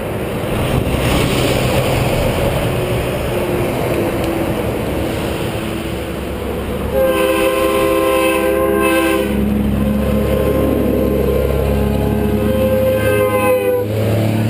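A convoy truck's air horn blows a multi-tone chord in two long blasts over diesel engine and road rumble. It starts about halfway through, is loudest in the first blast and stops just before the end.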